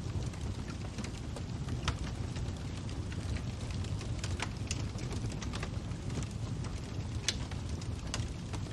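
Fire crackling, with irregular sharp pops and snaps over a steady low rumble. The loudest pops come about two seconds in and again about seven seconds in.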